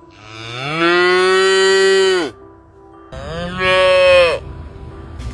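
A cow mooing twice: a long call of about two seconds whose pitch rises at the start and then holds, followed by a shorter call.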